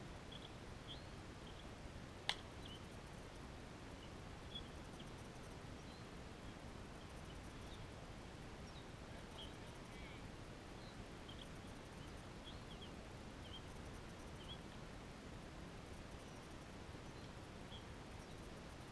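One sharp crack of a bat striking a ball about two seconds in, with a softer knock a couple of seconds later. Short, faint, high bird chirps are scattered over a steady outdoor background hum.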